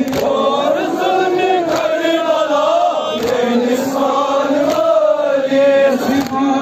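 Men's voices chanting a Kashmiri noha, a Shia lament, in a slow rise-and-fall melody. The crowd strikes its chests in unison in time with it, a sharp beat about every second and a half.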